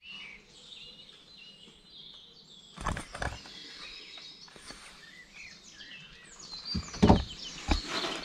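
Morning birdsong: several small birds chirping and trilling together. A few short knocks come about three seconds in and again around seven seconds in, the loudest there.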